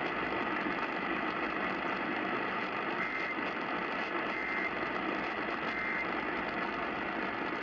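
AM radio static: a steady hiss from a weakly received station. Three faint short data-tone bursts come in the middle, about a second and a half apart, fitting the Emergency Alert System end-of-message signal that closes a relayed tornado warning.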